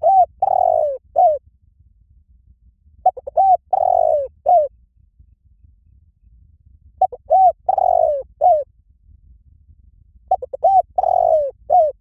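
Spotted dove cooing in four repeated phrases about three and a half seconds apart. Each phrase is two or three short coos, a longer drawn-out coo and a short closing note.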